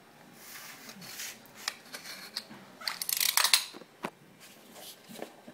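Utility knife blade scraping and slicing through the seal sticker on a cardboard phone box. There are several scratchy strokes, the loudest about three seconds in, and a few sharp clicks of the box being handled.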